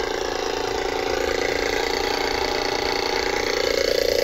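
Electric air pump or compressor running steadily and loudly while pumping air, growing slightly louder toward the end.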